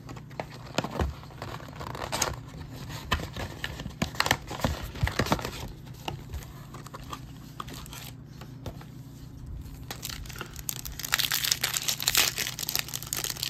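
Foil trading-card packs from a 2021 Donruss Optic football retail box being handled and torn open, with the box's cardboard rustling: scattered crackles and tears, then from about eleven seconds in a denser, louder run of wrapper crinkling.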